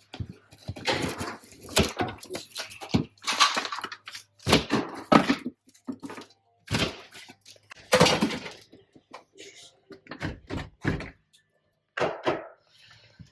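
Irregular knocks, thuds and scraping of wooden framing being pried and broken out, with rotted wood giving way.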